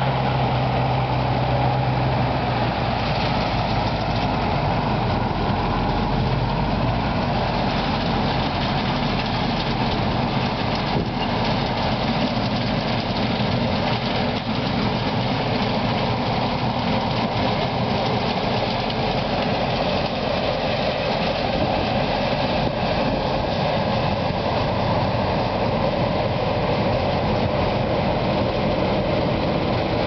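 Tractor diesel engine running steadily with a combine harvester working in the crop, a continuous even machinery noise with no pauses. A low engine hum that is clear at the start fades into the general noise after a few seconds.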